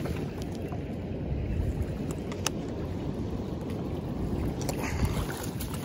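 Rushing river water, a steady low rumble, with a few sharp clicks, the loudest about five seconds in.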